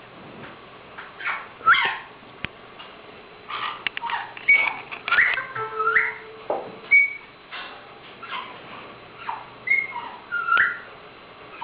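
Caique parrot whistling and chirping: a run of short whistled notes and quick up-and-down chirps, with a few sharp clicks in between.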